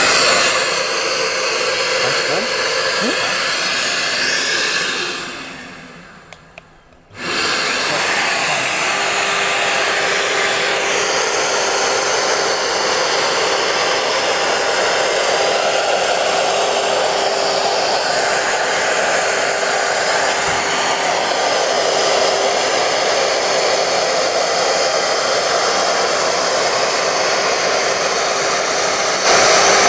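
A plunge router runs at full speed together with the dust-extraction vacuum, taking a very light surfacing pass over an end-grain cutting board. The sound dies away a few seconds in and starts again abruptly about two seconds later, then runs steadily, with a faint steady whine.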